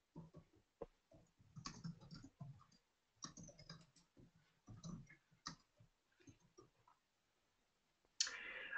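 Faint typing on a computer keyboard: irregular clusters of soft key clicks, with a short hiss near the end.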